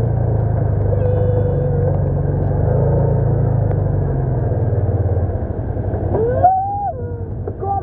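Motorcycle engine running steadily while riding, then easing off about five seconds in. A voice calls out briefly near the end.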